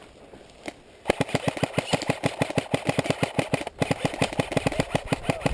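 An airsoft electric gun firing a long full-auto burst, a fast even rattle of about ten shots a second with the gearbox's low whir under each shot. It starts about a second in.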